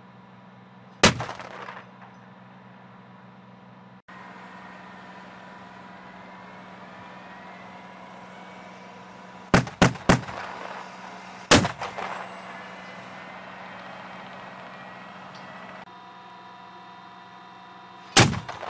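LAV-25 light armored vehicle's 25 mm turret chain gun firing: a single shot about a second in, a quick burst of three around ten seconds, another single shot just after, and one more near the end, each trailing off in an echo. The vehicle's engine idles steadily underneath.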